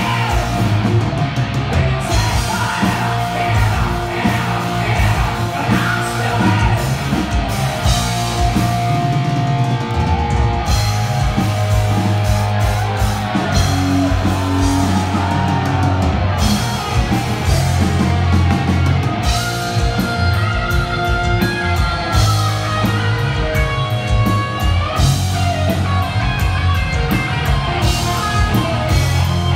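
Heavy metal band playing live: a singer over electric guitars and drums.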